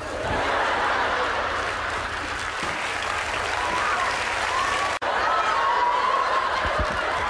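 Studio audience applauding, starting suddenly and continuing steadily, with cheering voices rising over the clapping in the second half.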